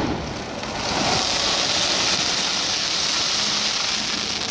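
Fireworks crackling: a dense, steady crackle like heavy rain, with no separate loud bangs.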